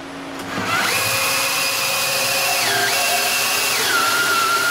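Cordless drill motor whining as it spins the mill's Y-axis ball screw, driving the saddle along its travel. The pitch dips briefly about halfway through, then drops lower and holds near the end as the drill slows.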